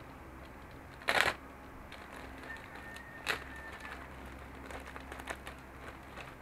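Plastic bag of model-kit parts being handled and opened: a short loud crackle about a second in, a sharp click a couple of seconds later, then a few light rustles and ticks.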